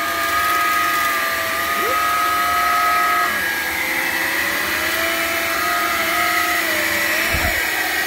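Hoover Linx cordless stick vacuum running with its brush roll spinning: a steady motor whine that drops slightly in pitch about three seconds in.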